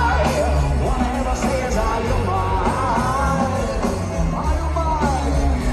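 Rock band playing live with singing, heard from within the audience: a loud, boomy bass under the sung melody.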